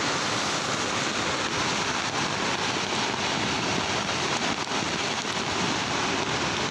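Muddy floodwater rushing through a stream channel and over a bridge: a steady, unbroken rush of water noise.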